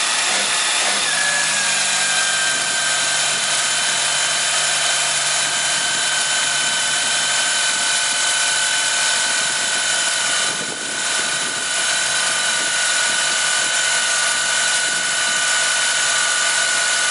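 Toyota Camry 2.2-litre four-cylinder engine idling steadily with its oil filler cap open, a steady high whine running over it. The owner is checking for blow-by at the filler and feels no air coming out, which he takes as a sign that the piston rings are not worn out.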